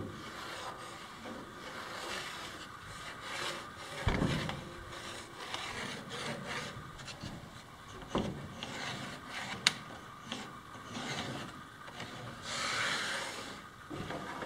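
Wooden floorboards being handled and shifted on a plank floor: irregular scraping and rubbing of wood on wood. There is a dull knock about four seconds in, another about eight seconds in, and a sharp tick soon after.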